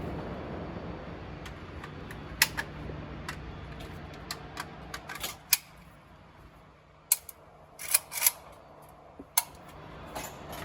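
A series of irregular sharp clicks and knocks, about a dozen, the loudest cluster late on, over a steady low hum.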